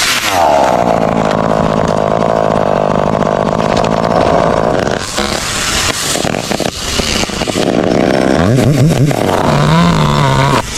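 Chainsaw engine running at high revs for several seconds, then cutting in and out and revving up and down near the end.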